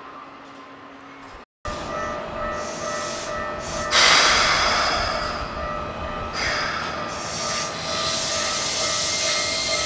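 Japanese level-crossing warning bell ringing in a steady repeating pattern while a Keikyu Main Line train rushes through. The train's noise hits suddenly about four seconds in and stays loud.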